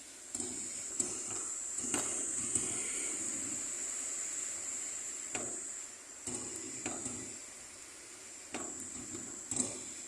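Hurricane wind gusting, rising and easing, with sharp knocks and rattles of something loose banging about half a dozen times.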